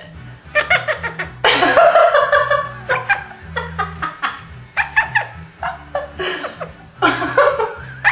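Quaker parrot making laugh-like chuckling calls: runs of short staccato 'ha' notes, with a longer, harsher burst about a second and a half in.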